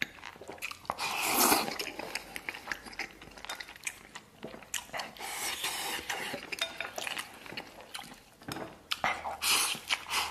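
Close-miked eating: chewing of braised pork belly and rice, with wooden chopsticks clicking and scraping against a ceramic rice bowl as rice is shoveled into the mouth. There are many short clicks and a few brief scraping or slurping noises.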